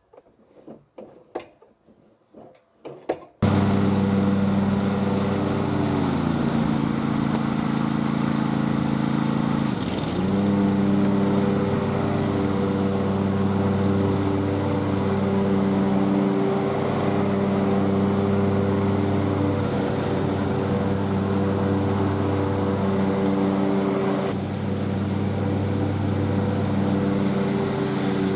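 John Deere Z345M zero-turn mower's engine running steadily, coming in abruptly about three seconds in after a few faint clicks. Its pitch dips briefly about ten seconds in.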